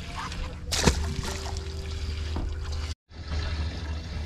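Water lapping and sloshing against a small fishing boat's hull, over a steady low rumble of wind on the microphone. A single sudden sharp sound about a second in, and the sound drops out completely for a moment near three seconds.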